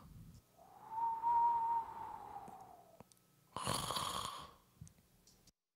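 A cartoon-style snore voiced by a person for a sleeping puppet. A long whistled note rises and falls, then comes a short raspy breath about three and a half seconds in.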